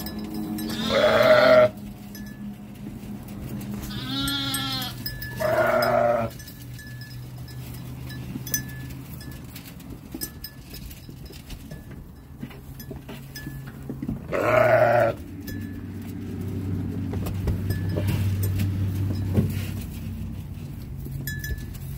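Sheep and goats in a barn pen bleating: four loud bleats, one about a second in, two close together around four to six seconds in (the first of them quavering), and one more about fifteen seconds in, over a steady low hum.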